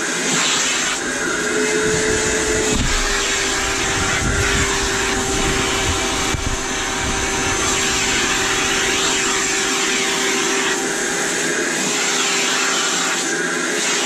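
Vacuum cleaner motor running steadily while its hose and brush nozzle are drawn over a dog's coat. The motor's pitch rises briefly about two seconds in.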